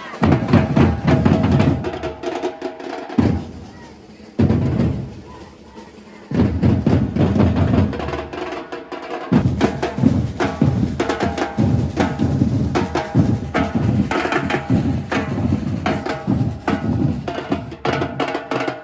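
Batucada drum ensemble playing: low surdo bass drums with snare and higher hand percussion, the bass drums dropping out briefly for breaks a few times and coming back in.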